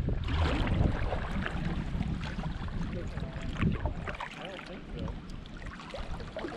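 Wind buffeting the microphone in the first second, then water lapping and trickling around a kayak on a slow river, with a few short chirps in the second half.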